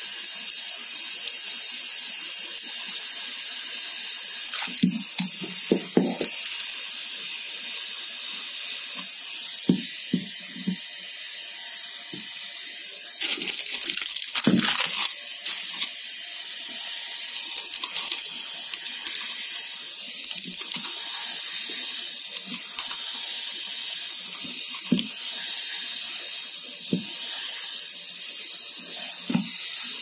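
Plastic film crinkling as it is fitted around plastic bird-food jars, with scattered knocks of the jars being handled on a wooden table, over a steady hiss. A louder rustle of the plastic comes about halfway through.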